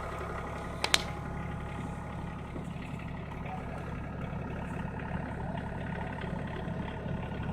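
Tractor engine running steadily at idle, a low even hum. A sharp click sounds once about a second in.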